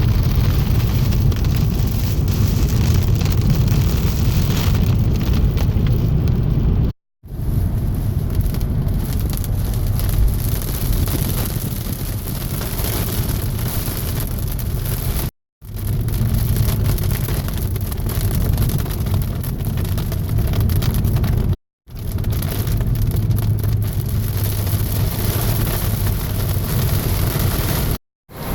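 Heavy thunderstorm rain: a steady hiss over a strong low rumble. It cuts out abruptly to silence three times.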